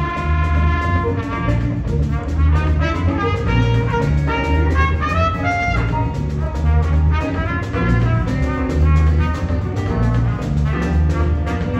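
Jazz big band playing, with a trumpet out front over the ensemble and a strong repeating bass line; the trumpet line climbs in pitch about four to six seconds in.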